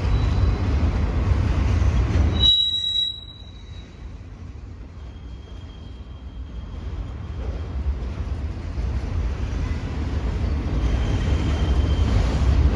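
Freight train rolling past with a low rumble and thin, high wheel squeal. The sound drops off sharply about two and a half seconds in, then slowly builds back up with faint squealing.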